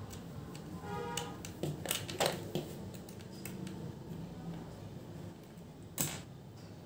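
Small plastic clicks and taps as a screwdriver works the battery compartment cover of a battery-operated toy, with a brief squeak about a second in and one sharper click near the end.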